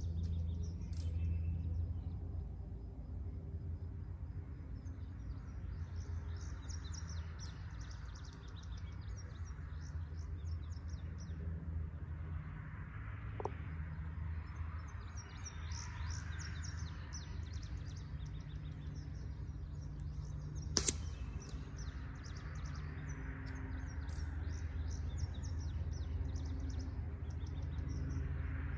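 Songbirds trill and chirp over a steady low outdoor rumble. About two-thirds of the way through comes a single sharp, loud crack: a shot at the fly target from a .22 Air Arms TX200 MkIII spring-piston air rifle.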